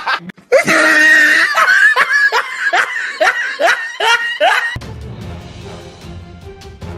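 A person laughing in a quick run of short, falling 'ha' syllables over music, stopping abruptly about five seconds in, after which only a quieter low background rumble remains.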